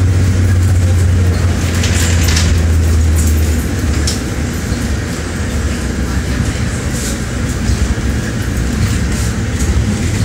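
King Long XMQ6126G 12-metre city bus heard from inside while under way: a steady low engine drone over road rumble, the engine drone easing off about three and a half seconds in.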